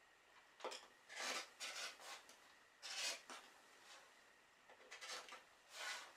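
Rotary cutter slicing through quilting fabric on a cutting mat: several short cutting strokes, each under half a second, with the acrylic ruler and fabric pieces handled between them.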